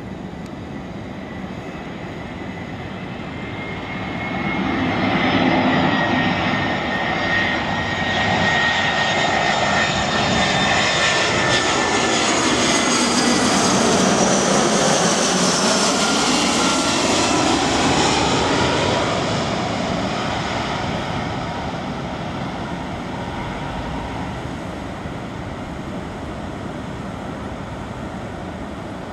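Airbus A319-111's CFM56 turbofan engines on final approach with the landing gear down, passing low overhead. A whine over a rumble swells about four seconds in, is loudest around the middle, then drops in pitch as the jet passes and fades away.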